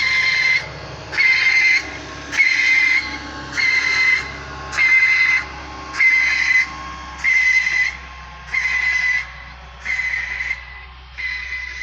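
Road-marking machine laying white lines, giving out a loud, regular pulsed hiss with a high whistling tone in it, about ten pulses, each about half a second long, a little over one per second.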